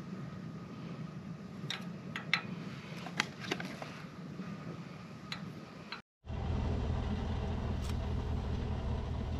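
Camp stove's gas burner running under a stainless steel kettle, with a few light clicks and taps as coffee grounds are spooned into it. After a cut about six seconds in, a louder steady low hum from the burner as the kettle steams.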